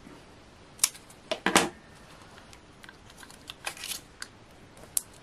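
Small clicks, taps and paper rustles from handling die-cut paper pieces and tweezers on a cutting mat. A handful of short sharp sounds, the loudest about a second and a half in.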